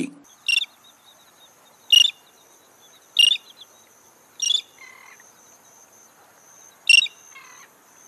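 Royal terns calling: five short, harsh, high calls at uneven intervals, over a faint steady high-pitched buzz.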